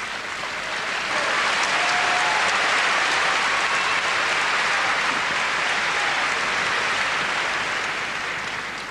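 Arena crowd applauding. The clapping swells about a second in, holds, and fades away near the end.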